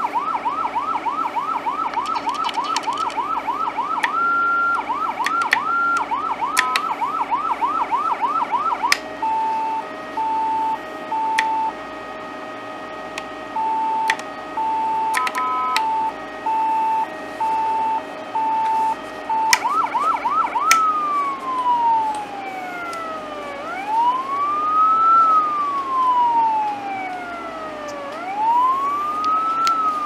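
Federal Signal PA300 electronic siren sounding through its speaker while it is switched between tones: a fast yelp of quick rising sweeps, then a steady tone pulsing on and off, then, about two-thirds of the way in, a slow wail rising and falling every few seconds. Sharp clicks come between the changes.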